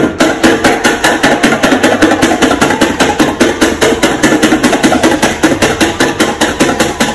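A pen point stabbing holes through a paper sheet on a hard surface in a rapid, even run of sharp taps, about five or six a second.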